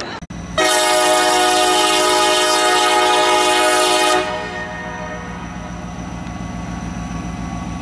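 A loud horn blast, one steady note held for about three and a half seconds, then cut off, followed by a steady low engine rumble.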